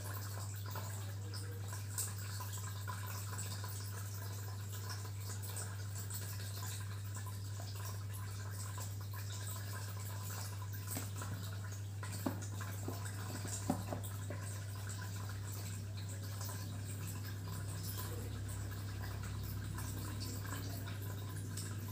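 Steady low hum under a faint hiss of room noise, with a few soft clicks, two of them close together past the middle.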